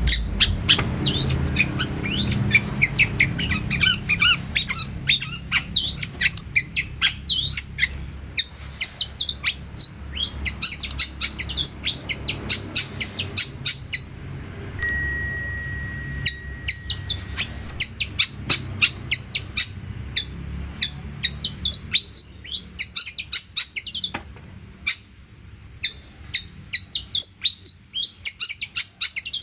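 Long-tailed shrike (cendet) singing hard: a fast, unbroken string of varied short chirps, trills and clicks, filled with mimicked calls of other birds, with one long steady whistle about halfway through.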